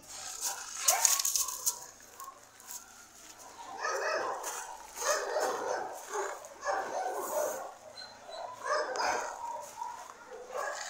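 Dogs barking on and off in several short bursts, with a brief rustle about a second in.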